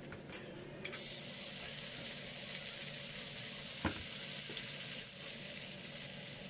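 Chopped ingredients sizzling in hot oil in a frying pan. The sizzle starts about a second in and stays steady, with two short knocks.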